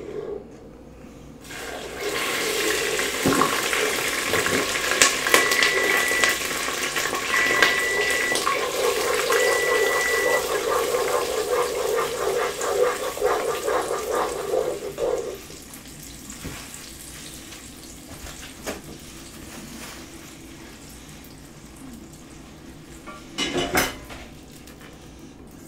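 Hot butter-and-sugar toffee sizzling and bubbling hard in a pot as vanilla is poured in and stirred. The hiss starts suddenly and cuts off after about fifteen seconds. Partway through, the stove's timer beeps three times, and near the end there is a metal clank as the pot is lifted off the grate.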